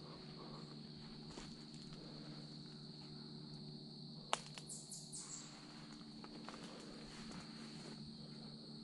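Steady high-pitched trilling of crickets in the woods, with a single sharp click about four seconds in followed by a few brief rustles in dry leaf litter.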